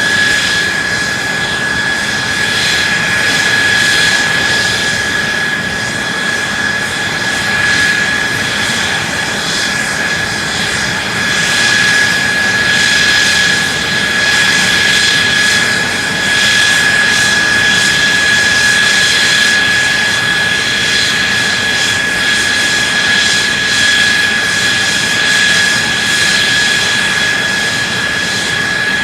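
An F-2 fighter's F110 turbofan jet engine running steadily on the ground, a loud rush of jet noise with a high, steady whine held at one pitch.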